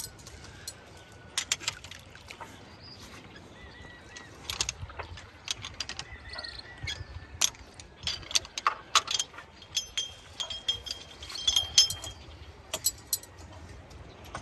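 Anchor chain and a metal snubber hook clinking and clanking against the steel bow roller as they are handled by hand: a run of sharp metallic clicks that gets busier about four seconds in, with some brief ringing clinks near the end.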